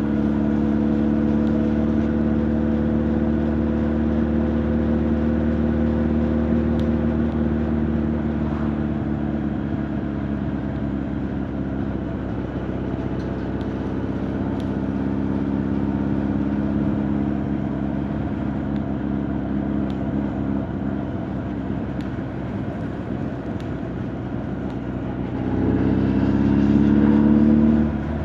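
Honda CB1300 Super Bol d'Or's inline-four engine and exhaust running under way, the note steady at first and then settling to a lower, quieter run. Near the end it revs up, louder and rising in pitch for about two seconds, then drops off suddenly.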